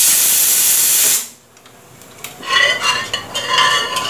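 Stovetop aluminium pressure cooker venting its steam in a loud, even hiss for just over a second, then cutting off suddenly as the pressure is let out so the lid can come off. After a short pause, a metal ladle clinks and scrapes against the open cooker's rim and sides.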